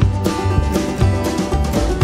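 Background music: an upbeat tune with plucked strings over a steady bass beat.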